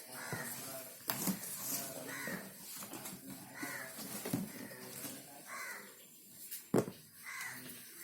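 A bird cawing repeatedly, about five harsh calls roughly every two seconds, over handling noise with a sharp knock near the end.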